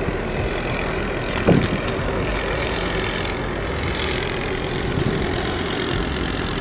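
Steady rumble of a car driving, with one short thump about one and a half seconds in.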